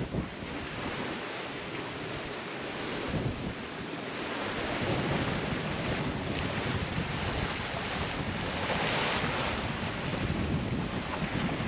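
Wind buffeting the microphone over sea water rushing past the hull of a sailboat under sail, swelling and easing with the waves.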